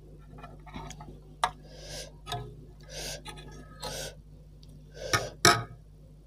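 A metal spoon and fork clink and scrape against a stainless steel pot, a handful of sharp clinks with the loudest near the end. Softer eating noises come in between.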